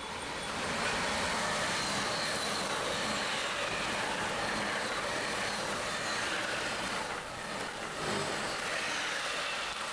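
Passenger train passing at speed: a steady rush of wheel and rail noise that builds over the first second and then holds.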